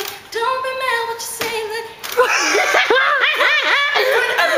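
A woman singing held notes, then, after a sharp sound about halfway through, her voice swoops widely up and down in pitch in playful vocalising.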